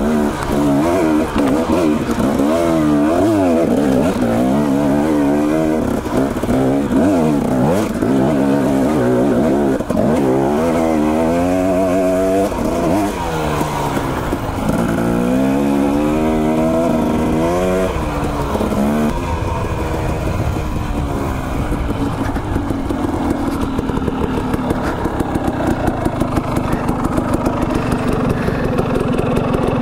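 Dirt bike engine under way on a trail, its pitch rising and falling again and again as the throttle is worked, then running at a steadier pitch for the last third.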